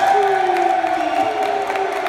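Wrestling crowd cheering and calling out, with long drawn-out shouts held at a steady pitch for a couple of seconds while a lower voice slides slowly down.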